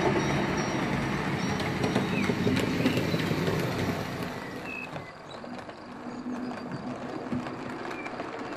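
BEMO HO-scale narrow-gauge model train running on its track: a steady rolling rumble with scattered clicks, loud for the first four seconds, then dropping to a fainter running sound.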